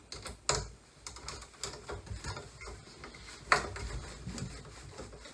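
Hand screwdriver driving a screw through a metal mounting bar into a blue plastic electrical box: a run of irregular small clicks and ticks of metal on plastic, the sharpest about half a second in and about three and a half seconds in.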